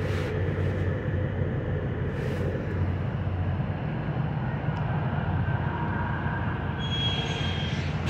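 Steady low rumble of an idling engine, with a faint thin high whistle near the end.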